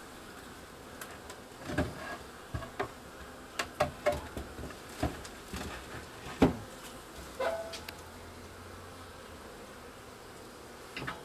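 Honeybees buzzing steadily at an open hive, with a string of short wooden knocks and scrapes as the hive's cover board is handled, the loudest about six and a half seconds in.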